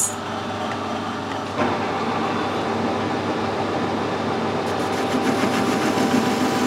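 Metal lathe running while a parting-off tool is fed into the spinning workpiece. The cutting noise steps up about a second and a half in. It cuts steadily without chatter, which the machinist puts down to the headstock bearings having been tightened.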